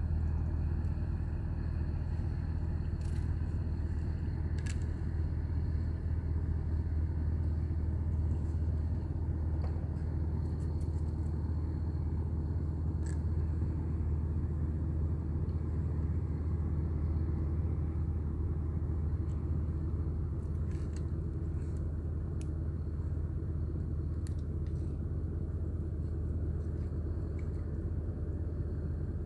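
Steady low engine drone, running evenly throughout, with a few faint sharp clicks and taps on top.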